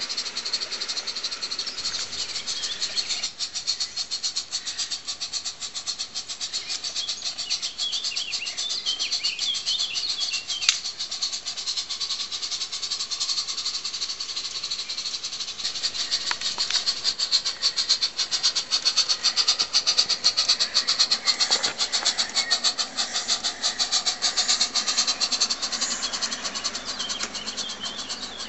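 Live-steam Spur IIm garden-railway freight train running, with rapid, regular clicking of its wagons' wheels on the track. It grows louder from about halfway through as the wagons roll past close by. Birds chirp briefly about eight to ten seconds in.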